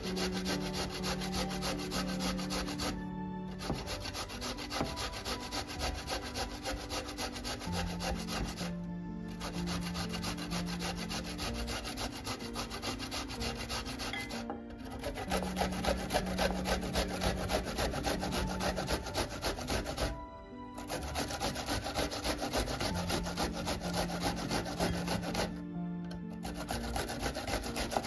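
Raw potato, and then an onion, rubbed up and down the blades of a stainless steel box grater in fast, continuous scraping strokes. Soft background music with low held notes plays underneath. The sound cuts off abruptly for a moment about every five or six seconds.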